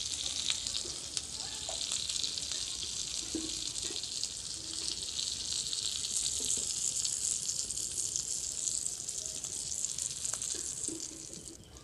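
Chicken and vegetable skewers sizzling in a little oil on a hot iron griddle (chatu), a steady hiss with a few light clicks as the skewers are lifted off. The sizzling dies away near the end.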